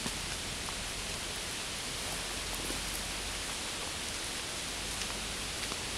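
Steady, even outdoor background hiss with a few faint ticks; no bird calls.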